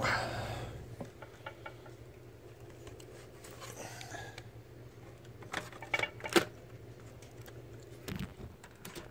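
Small clicks and taps of laptop case parts being handled during reassembly: a rustle at the start, scattered light clicks, three sharp clicks in quick succession past halfway, the third the loudest, and a dull knock near the end, over a steady low hum.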